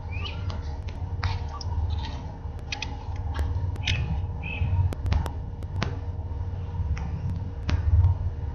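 Onboard sound of a radio-controlled model airplane in flight: a heavy wind rumble on the microphone over a steady motor hum, broken by frequent sharp clicks and a few short high squeaks.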